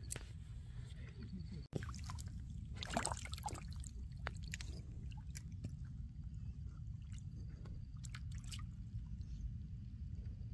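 Small waves lapping and trickling against a rocky lakeshore over a steady low rumble, with scattered small clicks and splashes.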